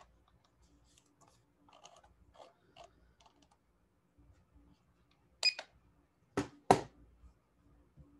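Faint keyboard typing and clicking in a quiet room, with three sharper, louder clicks a little past halfway.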